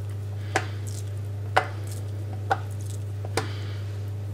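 Slices of smoked tofu being set down one by one in a metal baking tin: four light taps about a second apart, over a steady low hum.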